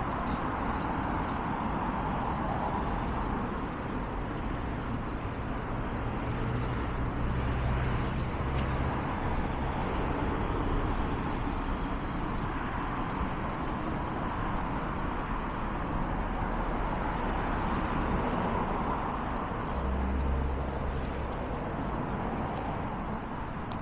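Steady city street traffic noise. Passing vehicles add a heavier low engine rumble from about six to nine seconds in, and again briefly about twenty seconds in.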